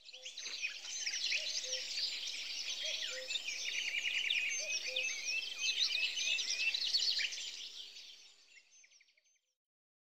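A dense chorus of small songbirds chirping and calling, many high notes overlapping at once. It fades in at the start and fades out about a second before the end.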